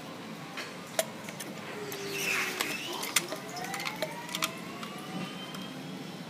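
Sharp clicks and clacks from handling a cartridge dispensing gun, with a short hiss about two seconds in. Faint whines that slowly rise in pitch run underneath from about two seconds on.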